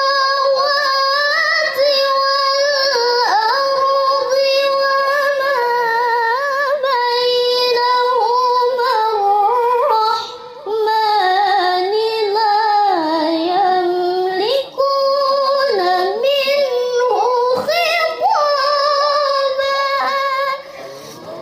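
A girl reciting the Quran in the melodic tilawah style, amplified through a microphone, holding long ornamented notes with short breath pauses about ten and fifteen seconds in; the recitation stops near the end.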